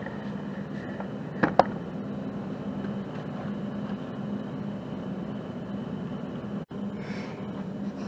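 Steady low mechanical hum of background machinery, with two sharp clicks about a second and a half in; the sound drops out for an instant near the end.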